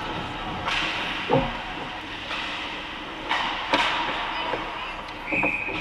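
Ice hockey play heard from behind the net: skate blades scraping the ice in short hissing bursts and sticks and puck knocking, over the echoing hum of the rink. A short high steady tone sounds near the end.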